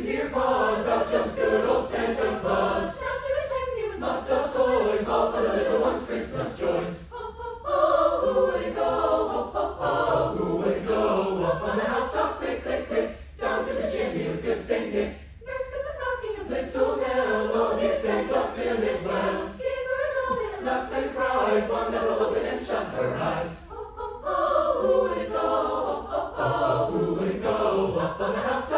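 Choir singing in long phrases with brief breaks between them.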